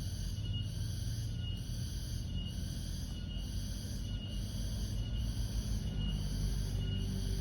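Wild crickets chirping in an even rhythm, short chirps just under once a second over a steady high insect trill. A low rumble runs underneath.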